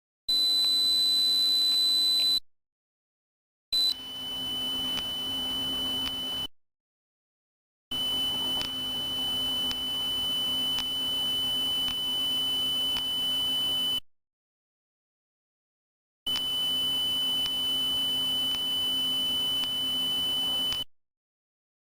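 High-pitched electronic sine tones played as a tinnitus masking sound. A steady tone sounds for about two seconds, then a slightly lower steady tone comes in three long stretches of several seconds each. Each stretch cuts off abruptly into dead silence, over a faint hiss.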